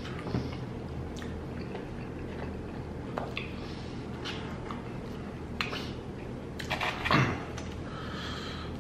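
Close-miked eating sounds of a man working through chicken wings: scattered wet mouth clicks and smacks as he chews and licks sauce from his fingers, with a louder wet mouth sound about seven seconds in. A steady low hum runs underneath.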